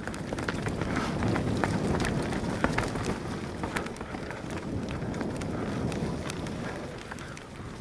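Mountain bike rolling down a dirt forest flow trail: tyres rumbling over soil and roots, with irregular sharp clicks and rattles from twigs and the bike, and wind rushing on the microphone. The noise is loudest in the middle and eases near the end.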